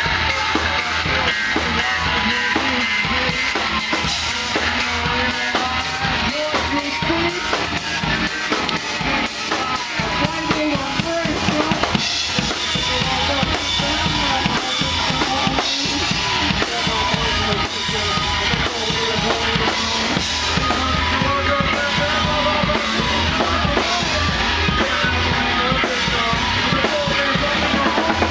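Live rock band playing an instrumental passage, the drum kit's bass drum and snare to the fore over guitar, with a steady beat throughout.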